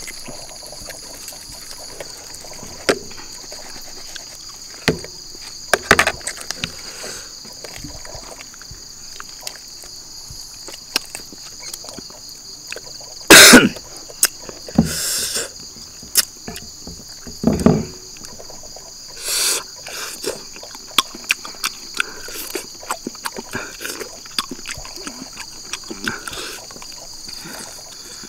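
Barbecued duck being eaten by hand: meat pulled apart, chewing and lip smacks as scattered short clicks, with a loud short burst about halfway through. Behind it runs a steady, high insect chorus.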